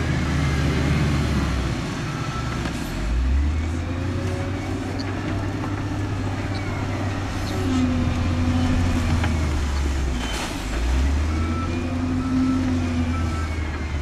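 Diesel engines of heavy earthmoving machines running under load, revving up about three seconds in and again near eleven seconds. A backup alarm beeps now and then, more often near the end.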